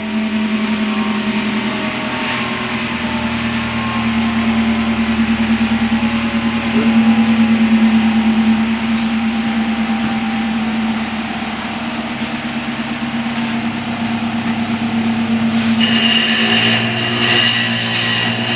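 Toyota Camry engine idling with a steady hum. A higher whine and hiss join about three seconds before the end.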